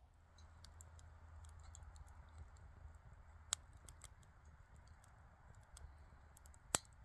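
Wood fire crackling in a small folding metal stove: scattered light pops over a faint steady hiss, with two sharp, louder pops, one about three and a half seconds in and one near the end.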